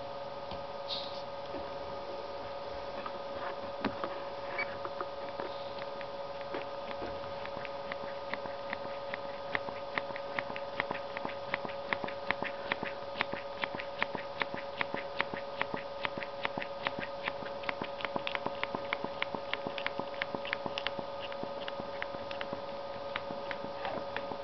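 Lego Technic pneumatic landing gear mechanism working, with a fast, even run of light plastic clicks, about four or five a second, over a steady hum.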